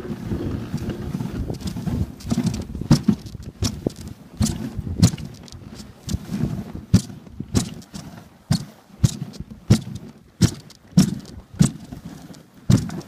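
Dog sled running along a packed snow trail pulled by a dog team: a steady scraping rumble from the runners on the snow, broken by frequent irregular knocks and rattles from the sled and its gear.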